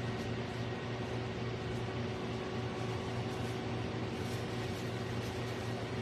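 A steady low hum with an even hiss that stays the same level throughout.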